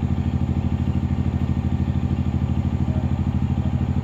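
A close engine running steadily with a fast, even thudding beat.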